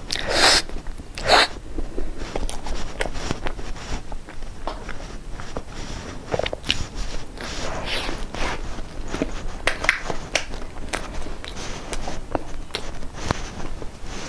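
A person eating soft baked pastry: chewing, wet mouth sounds, lip smacks and finger licking, in many short clicks. Two louder rustling bursts come in the first second and a half.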